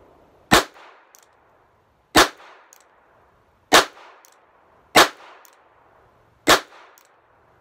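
Charter Arms Pathfinder .22LR revolver fired five times at an unhurried pace, about one and a half seconds between shots, each crack trailing off in a short echo.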